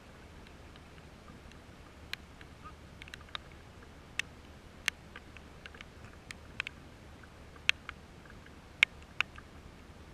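Raindrops falling close to the microphone: irregular sharp ticks and pats, a few each second, over a faint steady hiss.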